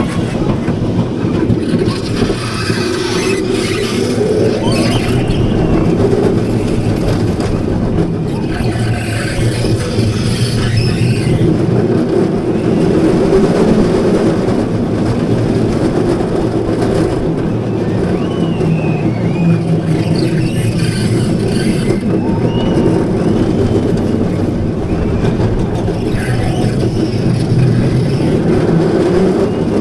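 Small family roller coaster train running along its track: a steady rumble of the wheels on the rails, with brief high squeals now and then.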